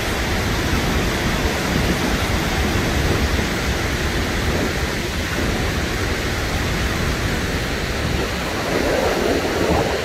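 Steady rushing of a waterfall and the fast creek below it, an even, unbroken wash of water noise with a heavy low rumble.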